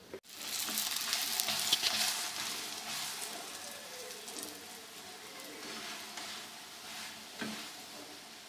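A rolled lachha paratha sizzling on a hot tawa. The sizzle starts suddenly, is loudest for the first couple of seconds and then slowly dies down, with a light knock late on.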